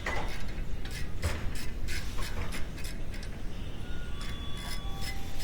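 Irregular metallic clicks and knocks of hand tools working on car parts, with a few short ringing tones about four seconds in.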